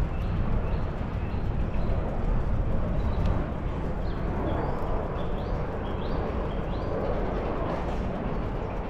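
Steady rumble of a bicycle ride: wind buffeting the microphone and tyres rolling on the path. In the middle, a bird calls a run of short rising chirps.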